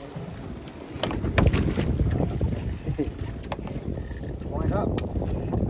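Wind buffeting the microphone over sea water sloshing against the boat's side, with a few sharp splashes or knocks about a second in and a short call from a voice near the end.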